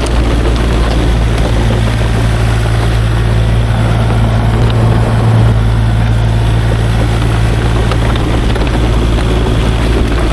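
Kubota KX040-4 mini excavator's diesel engine running steadily under working load, a constant low drone.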